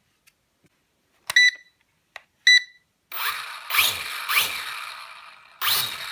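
Two short electronic beeps about a second apart, then the JJRC H8D quadcopter's small motors and propellers whir up in three short throttle bursts, each rising in pitch and then dying away.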